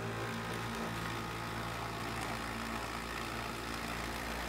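Norpro battery-operated electric flour sifter running with its hopper nearly full: a steady motor hum as the agitator works the flour through the screen. It is sifting normally, with no trouble under the full load.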